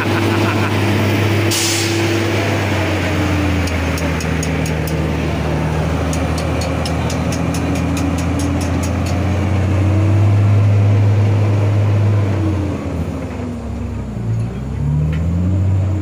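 Diesel engine of a loaded Mercedes-Benz Actros 4043 6x6 logging truck pulling away under load at close range, with a short burst of air hiss about a second and a half in. Near the end the revs drop and then climb again.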